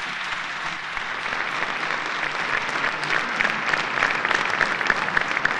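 Concert audience applauding at the end of a song. Single nearby claps stand out more sharply in the second half.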